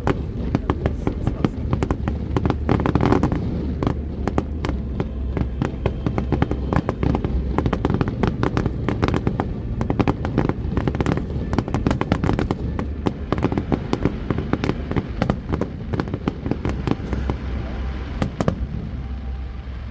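Fireworks display: a dense, continuous string of sharp bangs and crackling shell bursts, over a low rumble.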